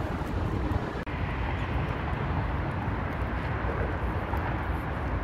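Steady outdoor rumble of wind on the microphone mixed with road traffic, with a brief break in the sound about a second in.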